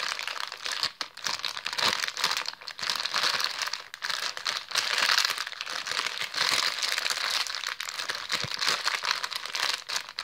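Plastic packaging bag crinkling as it is handled and squeezed in the hands around the squishy toy inside, with a rustle that rises and falls.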